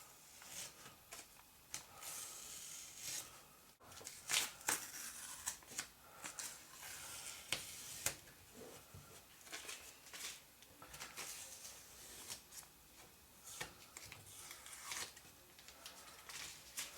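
Irregular short scraping and rustling noises of material being worked by hand, in quick separate strokes with short gaps.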